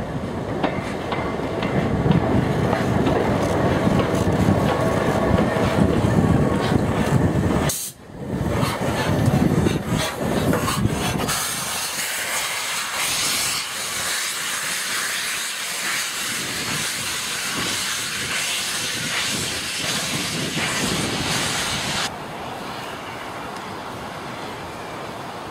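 Peppercorn A1 Pacific steam locomotive 60163 Tornado working slowly past. A loud rumble gives way about eleven seconds in to a strong, steady hiss of steam blowing from the open cylinder drain cocks. Near the end the sound drops to a quieter, steady train noise.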